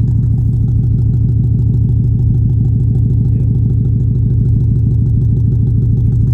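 2004 Subaru WRX turbocharged flat-four engine idling steadily with an even rhythmic pulse, heard from the exhaust end. It is running rough with a tick out the back that it doesn't normally have, which the owner takes for a likely head gasket failure, or possibly bad turbo seals.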